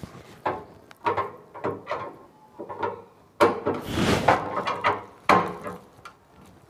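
A kitchen tandem box drawer, its front freshly fitted and adjusted, pulled out and shifted on its metal runners: a string of short sliding and knocking sounds, the loudest starting a little over three seconds in.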